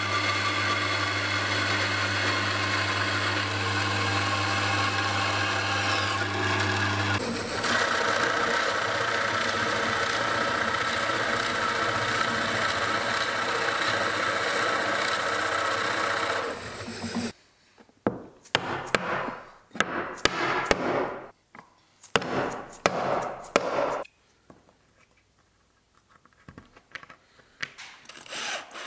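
A metal-cutting bandsaw runs steadily with a strong low hum as it cuts an aluminium bar. About seven seconds in, this gives way to a pillar drill boring into timber, running steadily for about ten seconds. Then come several short bursts of a cordless drill driving screws, followed by near quiet with a few small clicks.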